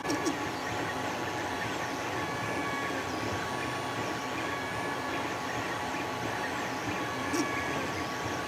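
Desktop FDM 3D printer running: its stepper motors whine in short rising and falling tones as the print head moves back and forth, over a steady fan hum, with a brief click near the end.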